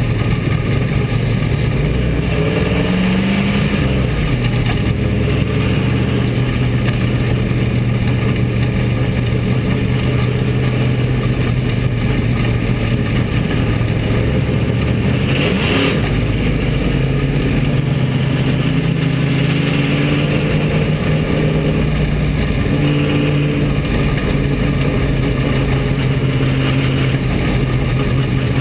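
Bomber-class dirt track race car's engine, heard from inside the cockpit, running steadily with slow rises and dips in pitch. A brief knock comes about halfway through.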